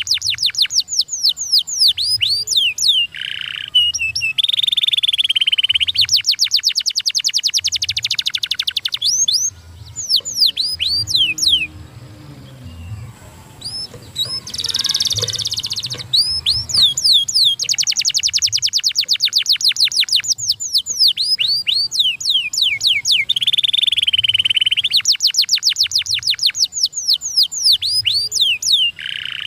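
Domestic canary singing: fast trills of rapidly repeated notes and runs of downward-sweeping whistles, with a brief pause about halfway through.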